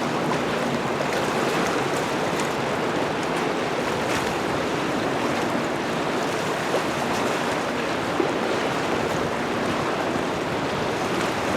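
Water pouring through an open dam chute on a river, a steady rushing noise.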